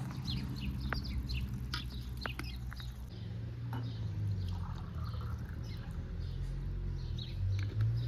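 Small birds chirping in quick, short calls throughout, over a steady low rumble.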